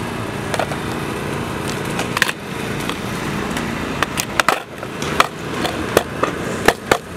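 Streetboard being handled on the concrete skatepark deck: a knock about two seconds in, then a run of sharp clacks from its wheels, trucks and plates in the last three seconds as it is flipped over and set back down. A steady machine hum runs underneath.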